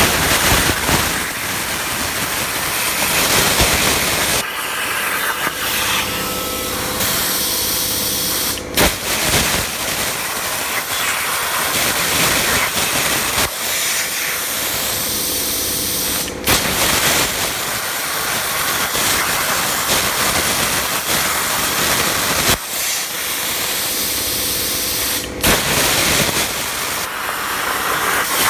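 Razorweld 45 plasma cutter's arc cutting 16-gauge sheet steel on a CNC table: a loud, steady hiss of air and arc, broken by three brief drop-outs.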